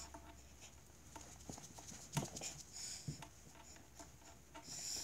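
Faint, scattered thumps, taps and rustling from a person moving about close to the microphone, with two louder knocks about two and three seconds in.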